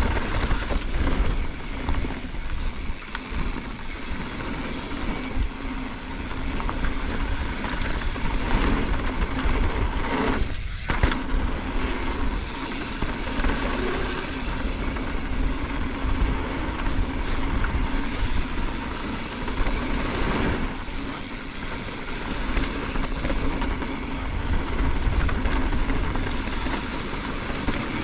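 Mountain bike descending a dirt trail: wind rushing over the camera microphone, with tyres rumbling over the dirt and the bike rattling over bumps. About ten seconds in the noise briefly thins, then a sharp knock.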